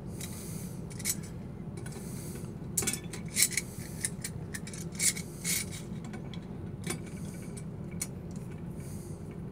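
Knipex pliers wrench handled on a brass plumbing fitting: irregular short metallic clicks and scrapes as its sliding jaw is adjusted and clamped onto a nut, over a steady low hum.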